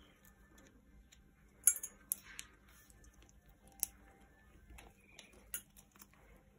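Scattered sharp clinks and knocks as a green-winged macaw's beak rummages among nuts and shells in a stainless steel food bowl. The loudest clink comes a little under two seconds in.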